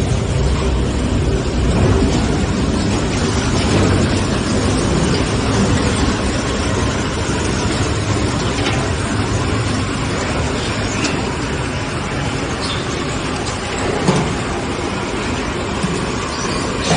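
Steady rumble of heavy industrial machinery running, with a brief knock about 14 seconds in.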